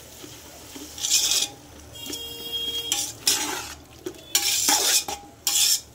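Metal perforated skimmer scraping and stirring onions and ginger-garlic paste around a large aluminium pot in a series of irregular strokes, over a faint sizzle of frying in oil: the paste being sautéed.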